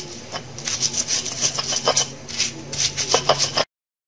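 A stone pestle scraping and crushing raw chilies, shallots, garlic and candlenuts against a flat stone mortar, in quick repeated strokes, as a spice paste is ground by hand. The sound cuts off suddenly near the end.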